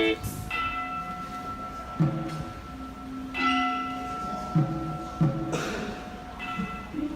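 Music of struck bells: about six strikes, each with a low thump, whose tones ring on and die away between strikes.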